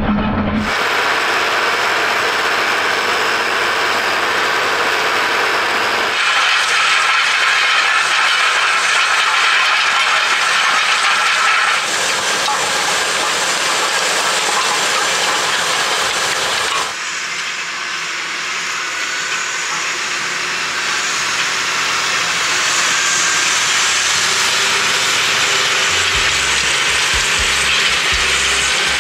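Versatile 315 tractor pulling a Kverneland Qualidisc disc cultivator and Cambridge roller through a field: a loud, steady hissing clatter of discs, roller and machinery. The tone jumps abruptly four times, at about 6, 12, 17 and 26 seconds in, and a low throb comes in near the end.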